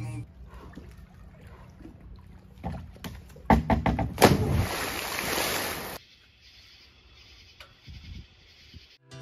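A person landing in a swimming pool after a backflip: a loud splash of water about four seconds in, lasting under two seconds, just after a few sharp knocks.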